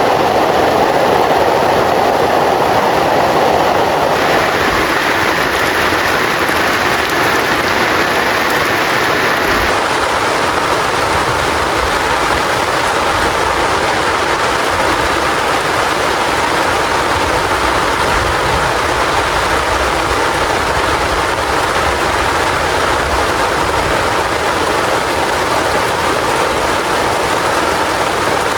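Heavy rain falling steadily, a dense even hiss; its tone shifts about four and ten seconds in.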